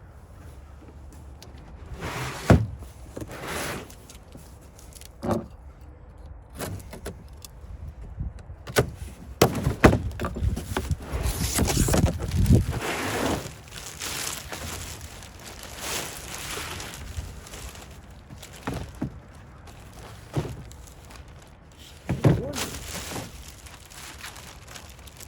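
Handling noises from fitting moulded plastic floor liners in a pickup cab: scattered clunks and knocks with rustling, and a longer stretch of scraping and rustling about ten seconds in.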